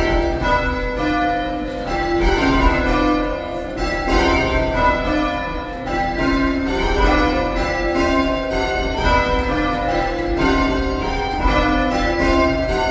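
Church bells being change rung, pulled full-circle by hand on ropes, heard from the ringing room below the bells: a steady, even run of strikes, each bell ringing on into the next.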